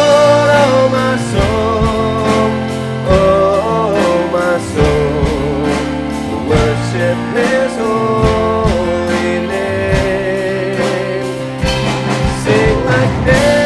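Live worship band playing a slow song: voices singing over acoustic guitar, electric guitar and keyboard.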